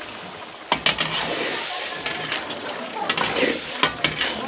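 Metal ladle stirring and scraping goat-meat curry in a metal kadhai, with several sharp clinks against the pan over the sizzle of the frying meat.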